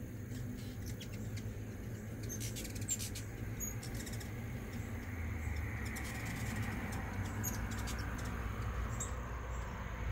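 Hummingbirds at a feeder giving short, high squeaky chips and clicks. Under them is a steady low traffic rumble that swells with a passing vehicle in the second half.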